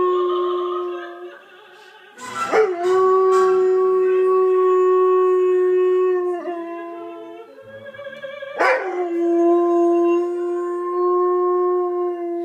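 Northern Inuit dog howling along to opera music in long, steady held notes. One howl fades out, a new one starts about two seconds in, and another starts about eight and a half seconds in, each sliding down from a high start into the held note.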